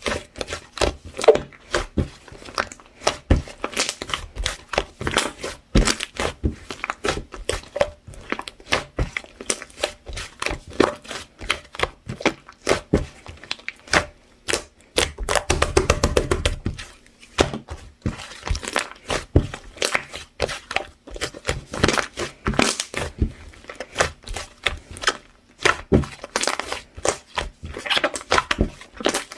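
Fluffy, clay-textured white slime being squeezed and pressed by hand, giving a quick, irregular run of sticky clicks and crackles, with a longer, denser squish about halfway.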